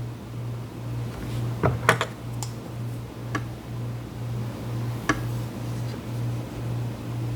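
Scattered light plastic clicks and taps as the bottom cover of an HP Envy x360 laptop is handled and tried for a loose edge, a few close together about two seconds in and single ones later. Underneath, a steady low hum pulses about twice a second.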